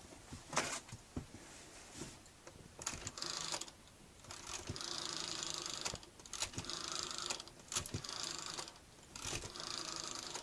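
Rotary telephone dial being turned and clicking back, in about five short runs with pauses between, as a number is dialed.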